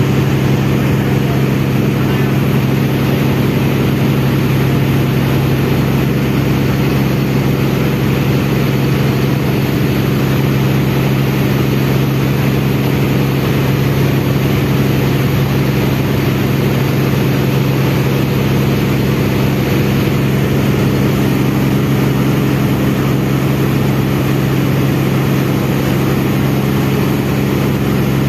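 Large river ferry's engine running at steady cruising speed: a deep, even hum that holds one pitch throughout, over the rush of churning water from the wake along the hull.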